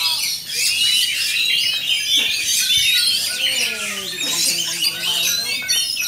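Many caged songbirds in a singing contest, all singing at once: a dense, overlapping mix of quick whistles, chirps and trills.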